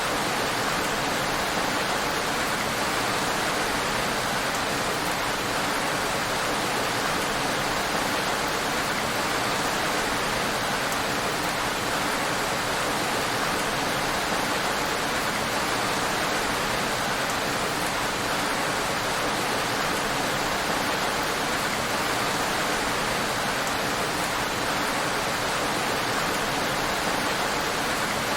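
Heavy rain falling steadily, an even, unbroken hiss with no single drops or gusts standing out.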